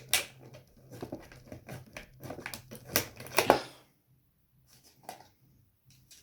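Scissors snipping and packaging crinkling as the security seals on a boxed smoke alarm are cut, with a run of sharp snips and rustles, the loudest near the three-second mark. The cutting stops a little past halfway, leaving only a couple of faint ticks.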